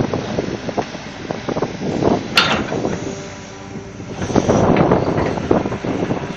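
Hitachi Zaxis excavator running as it works in deep mud, its engine under a rough noise of many irregular knocks and clanks. One sharp clank comes about two and a half seconds in.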